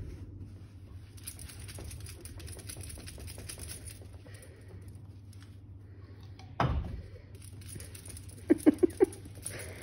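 Dog gnawing a chew bone, many small clicks and crunches over a low steady hum. There is a louder thump about seven seconds in and four quick sharp knocks near the end.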